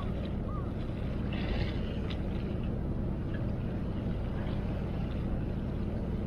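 Steady low drone of a boat engine running, with a few faint light ticks on top.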